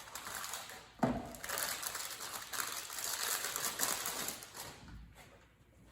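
Hands working with small parts: a sharp click about a second in, then a few seconds of rustling and light scraping that fades out near the end.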